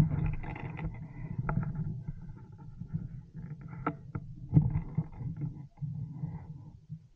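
Low rumbling handling noise and rustling, as gear and leaves rub against the camera's microphone, with a few sharp knocks or clicks, the loudest about four and a half seconds in.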